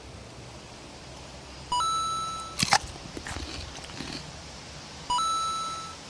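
Two identical electronic beeps about three and a half seconds apart, each a short blip stepping up into a steady tone that fades away over about a second; a sharp click sounds between them.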